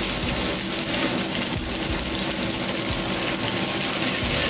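Wagyu beef strips sizzling steadily on a hot ridged grill plate over a portable gas stove.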